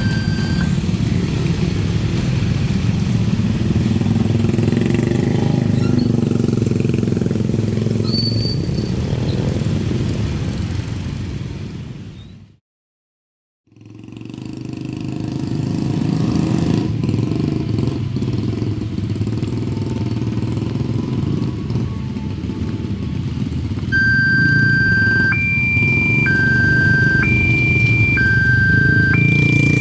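Road traffic engines running past a railway level crossing. The sound fades out about twelve seconds in and fades back after a second or so of silence. Near the end the crossing's warning alarm starts, alternating steadily between two high tones at about one per second; the same alarm cuts off just after the start.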